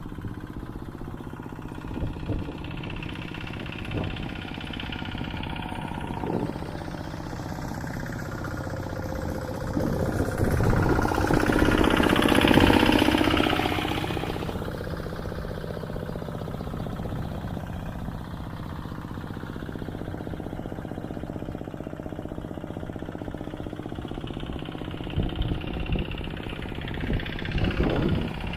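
Rice-field hand tractor's engine running steadily, growing louder for a few seconds in the middle, with a few knocks near the end.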